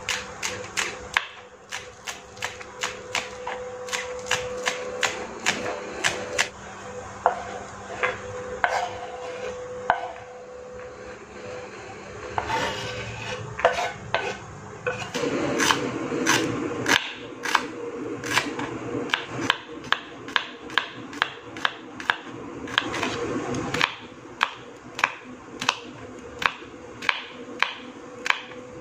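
Kitchen knife chopping on a wooden cutting board: a run of sharp knocks, quick at first, then sparser. A stretch of scraping in the middle as chopped spring onion is pushed off the board into a bowl. Steady chopping of red chillies at about two strokes a second near the end.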